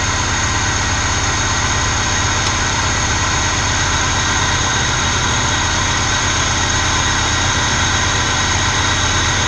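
Moskvich 2140's UZAM-412 inline-four engine idling steadily, its carburettor idle mixture just screwed leaner to cure an over-rich idle.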